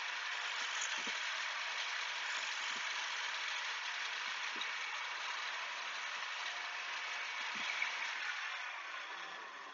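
Chisel steel being ground on a spinning Shopsmith grinding wheel: a steady grinding hiss with a few faint ticks. Near the end the machine is shut down and the sound fades away as the wheel spins down.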